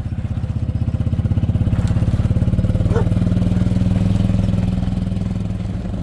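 Small gas engine of a golf-cart-style utility cart running steadily as it drives, with an even, rapid pulsing. A rattle comes from ice on top of the cart's canopy.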